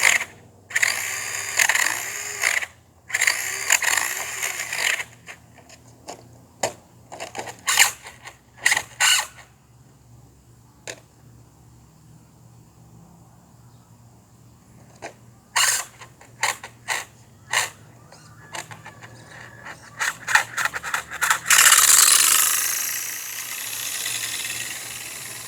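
RC car running, with a mechanical clicking and ratcheting in irregular bursts of sharp clicks. About 21 seconds in, a loud rushing noise starts and fades away.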